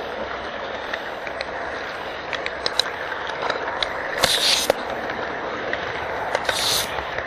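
HO-scale model train running on its track, heard up close from a camera riding along with it: a steady rushing rattle with scattered clicks, and two brief hissing scrapes about four and six and a half seconds in.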